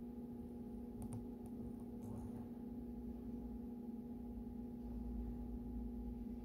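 Woodworking jointer running with no board on the cutterhead: a quiet, steady motor hum, with a couple of faint clicks about one and two seconds in.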